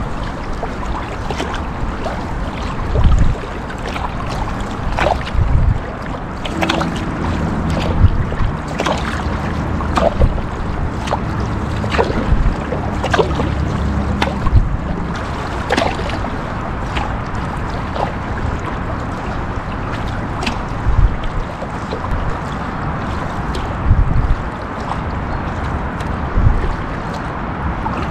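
Kayak paddling on a river: paddle blades dipping and splashing irregularly every second or two over a steady wash of moving water, with occasional low thumps of wind on the microphone.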